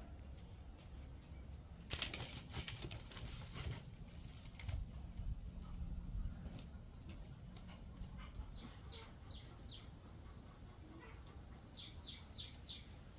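A burst of rustling about two seconds in, then a bird giving two quick runs of four short, high chirps.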